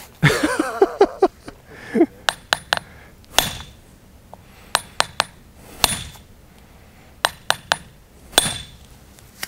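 Hammer striking a steel splitting chisel held on a stone paving cube: light, clinking metal-on-metal taps in small clusters of two or three. The blows are given without force, steadily working the stone along its grain towards a split.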